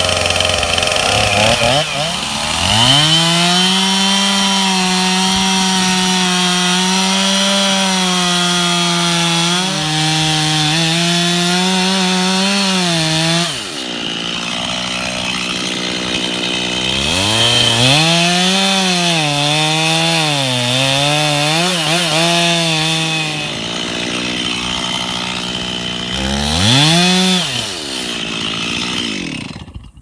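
Stihl two-stroke chainsaw revving up from idle about two seconds in and cutting into a white oak trunk at full throttle. The engine pitch sags under load and rises again as the bar eases, which happens while sawing the conventional felling notch. It drops back to idle twice between cuts, revs once more, and is shut off right at the end.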